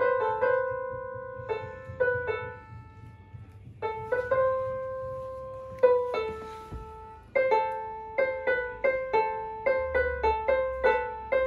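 Casio CTK-240 electronic keyboard played one note at a time in a simple beginner's tune: a few slow, held notes at first, then quicker notes from about seven seconds in.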